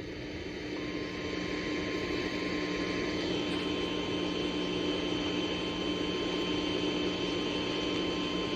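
NOAA Weather Radio warning alarm tone, a single steady 1050 Hz tone starting about a second in and held without a break, heard over receiver hiss and hum. It is the attention signal that comes before a new warning message is read.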